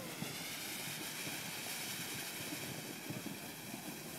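Ground fountain firework steadily hissing as it sprays sparks.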